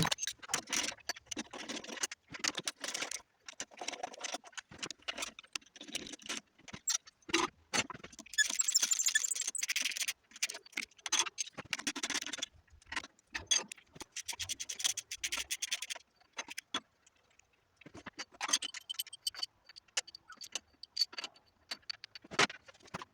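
A socket wrench ratcheting in runs of quick clicks, with metal clinking as cylinder head bolts are loosened and handled on the engine. The densest, brightest ratcheting comes about eight seconds in and again near the end.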